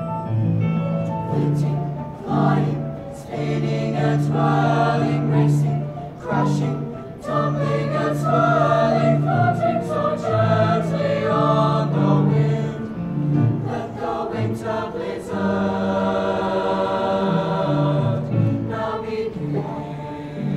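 A youth choir singing together.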